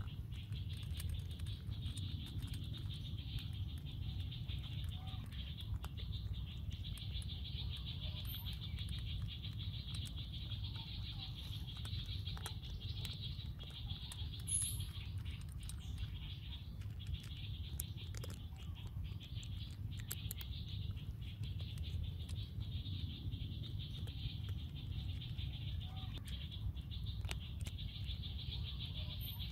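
Forest ambience: a steady high-pitched insect drone over a low rumble, with scattered faint clicks and taps.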